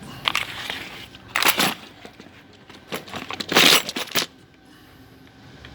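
Short metallic clattering and scraping, in a few bursts with the loudest cluster about three to four seconds in, as the feed dog and its parts are taken out of a Juki industrial straight-stitch sewing machine.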